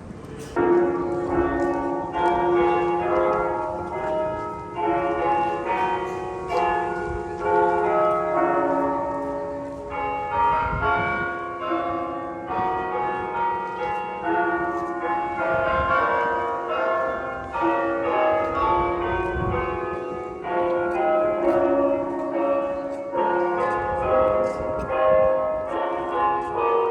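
Church bells of Mission San José ringing: several bells of different pitch struck in quick, overlapping succession, starting about half a second in, each note ringing on under the next.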